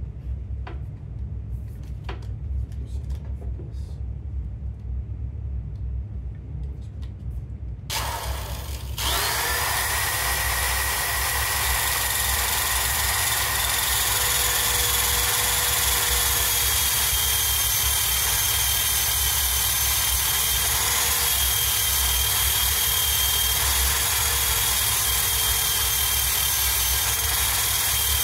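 Power tool fitted with a wire wheel, spinning up about eight seconds in and then running steadily with a constant whine. Before that, only a few light clicks over a low rumble.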